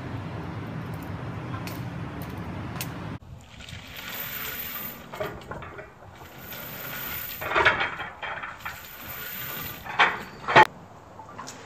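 A steady low outdoor rumble for about three seconds, then a sled stacked with iron weight plates dragged over asphalt in short pulls. It scrapes in three or four bursts, with a few sharp metal clanks from the plates, the loudest near the end.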